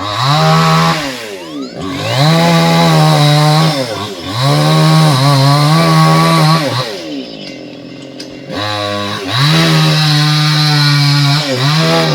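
Two-stroke chainsaw held at full throttle in four long bursts, the engine note falling back toward idle between them.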